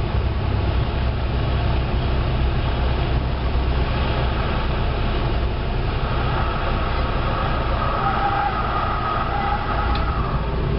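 Cessna 172's piston engine and propeller running steadily, heard from inside the cockpit during the landing. A fainter higher tone comes in about six seconds in.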